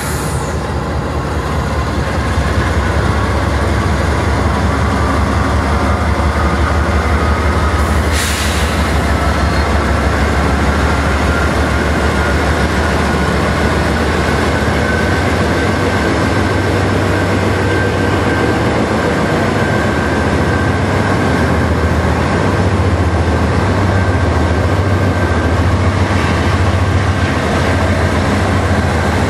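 Three GE AC4400CW diesel-electric locomotives hauling a long intermodal freight train pass close by, their 16-cylinder diesel engines giving a loud, steady low rumble over the noise of the wheels on the rails. A faint high whine slowly rises in pitch, and a single sharp clank comes about eight seconds in.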